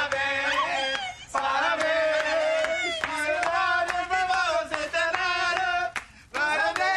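A group of voices singing a birthday song together, with hand clapping in time, about three claps a second; the singing breaks off briefly about a second in and again about six seconds in.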